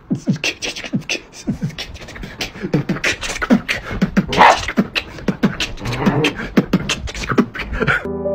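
A rapid, uneven run of thumps and scuffs on bedding as a dog scrabbles about on a bed, cut off near the end by soft piano music.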